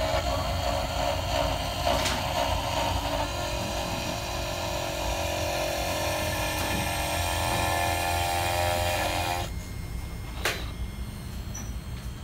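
Mini three-axis CNC router milling wood, its 400 W spindle and end mill cutting with a steady whine of several tones over a low rumble. About nine and a half seconds in the whine drops away suddenly, and a single sharp click follows about a second later.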